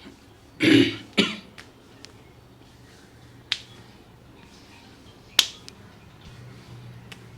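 Head-massage hand sounds: two loud smacks close together about a second in, then two sharp cracks or snaps a couple of seconds apart.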